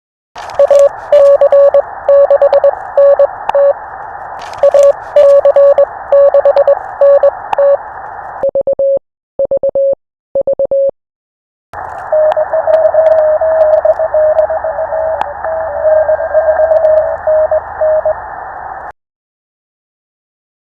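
Morse code (CW) from an amateur radio transceiver: a keyed tone of dots and dashes over radio static. Part-way through, a few clean keyed tones come without static. Then more Morse over static resumes and stops a couple of seconds before the end.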